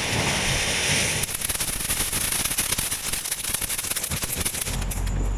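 Consumer firework fountain going off: a steady spraying hiss that turns to dense crackling about a second in. A low rumble comes near the end.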